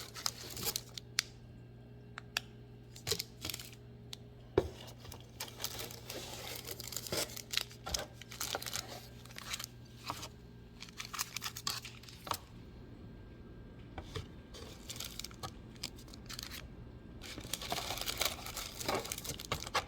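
Paper and cardboard packaging being handled: irregular rustling and crinkling with scattered clicks and taps.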